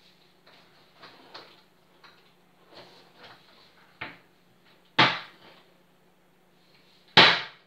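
Kitchen cupboards and crockery being handled: a string of light knocks and rattles, with two loud bangs about five seconds in and near the end.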